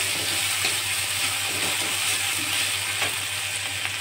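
Sliced onions and garlic sizzling in hot mustard oil in an iron karahi, stirred and scraped around the pan with a metal spatula, with a steady hiss and a sharp tick about three seconds in.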